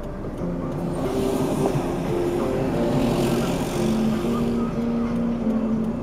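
Background music with a simple melody, over which the noise of a passing road vehicle swells about a second in and fades away after about four and a half seconds.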